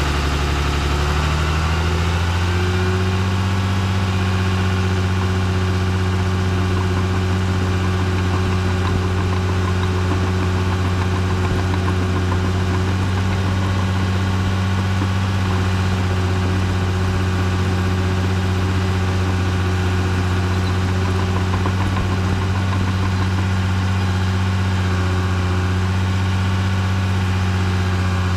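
Caterpillar D3C LGP dozer's diesel engine, heard from the operator's seat, coming up in pitch over the first couple of seconds and then running steadily as the machine works.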